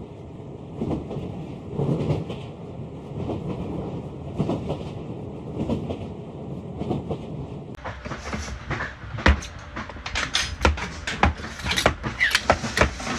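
Steady rumble of a moving train heard from inside the carriage. About eight seconds in it cuts to a rapid run of sharp metallic clicks and clanks as metal tools are handled on a workbench.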